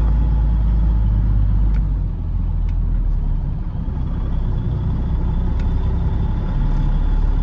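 Semi truck's engine and tyres rumbling steadily inside the cab while driving at highway speed.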